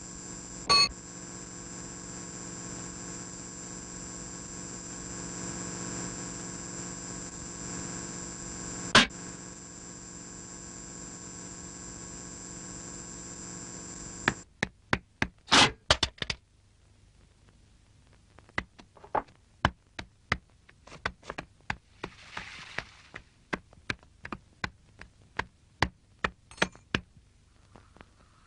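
A steady hum of several pitches, with a high whine on top, broken by a loud sharp click near the start and another about nine seconds in; it cuts off suddenly about halfway. After it comes a quieter run of irregular sharp clicks and taps.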